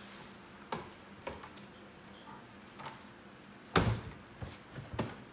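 Plastic laundry basket knocking on a tiled floor and against a chest of drawers as monkeys shove and climb on it: a few light knocks, then one loud thump about four seconds in as it tips against the drawers, followed by two more knocks.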